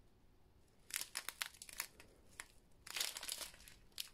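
Small clear plastic zip-lock bags filled with square diamond-painting drills crinkling as they are handled, in two short bursts, one about a second in and one near three seconds.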